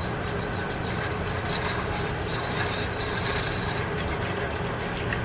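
A whisk stirring a thin milk-and-flour sauce in a nonstick saucepan, a continuous swishing with small clicks and scrapes as the wires hit the pot's sides and bottom, over a steady low hum.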